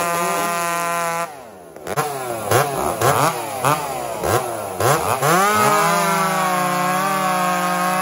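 Husqvarna 266 two-stroke chainsaw running at high revs. About a second in it drops off, is blipped up and down several times, then is held at full throttle again.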